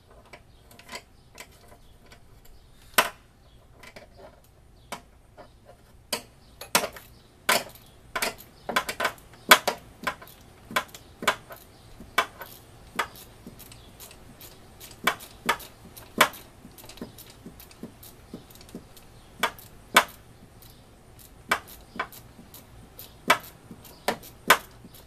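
Scattered sharp metallic clicks and clinks, some bunched in quick runs, from a hand ratchet and other tools working on bolts.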